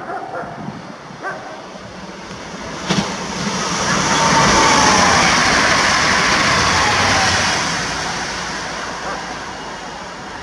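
Pesa ED74 electric multiple unit passing at speed. The running noise swells to its loudest about four to seven seconds in, with a whine that falls in pitch as the train goes by, then fades. A single click sounds about three seconds in.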